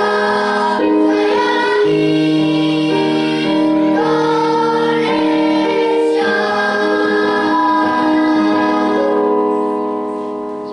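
Children's choir singing in harmony, several voice parts on long held notes, ending on a sustained chord that fades away near the end.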